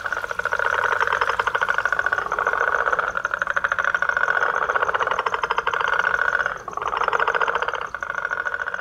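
A chorus of toads calling: long, rapidly pulsed trills that overlap, running on with two short breaks in the second half, and a fainter, higher pulsing caller behind them.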